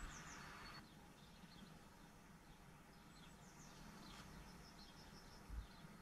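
Faint birdsong: scattered quick, high chirps from small birds over a very quiet outdoor background. A soft hiss stops about a second in, and there is one low thump near the end.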